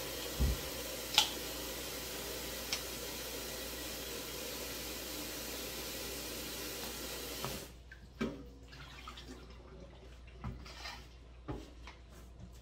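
Kitchen tap running steadily, filling a stainless steel bowl with cold water in the sink, shut off abruptly about two-thirds of the way through; a few light knocks follow.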